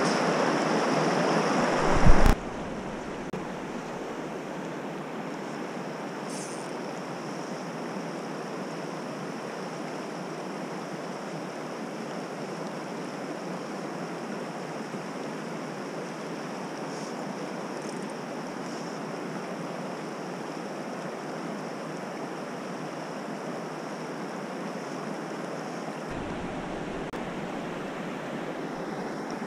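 Cache la Poudre River water running over rocks: a steady rush. It is louder for the first two seconds and ends there in a sharp knock, then goes on as an even, quieter rush.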